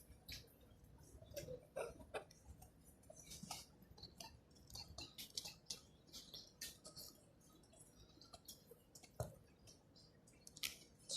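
Near silence: room tone with scattered faint clicks and short rustles.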